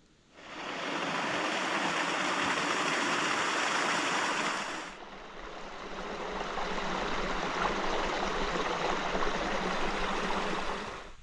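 Shallow stream rushing over rocks, a steady rush of water. About five seconds in it turns a little quieter and duller, then carries on.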